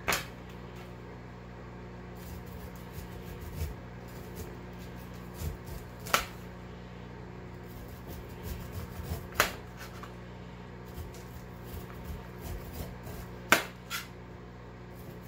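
Large kitchen knife cutting kernels down a cooked ear of sweet corn onto a metal cookie sheet: soft scraping strokes, with a few sharp taps when the blade strikes the sheet. A steady low hum underlies it.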